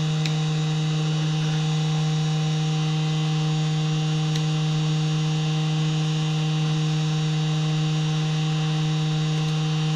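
Heat gun running: a steady electric hum over a hiss of blown air, unchanging throughout.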